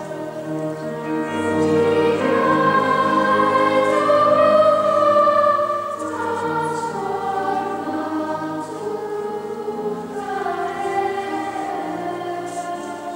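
A children's choir of girls singing in slow, held notes, swelling louder after about a second and easing off about halfway through.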